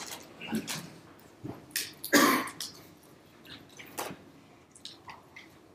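A person coughing once, about two seconds in, with a few small clicks and knocks around it.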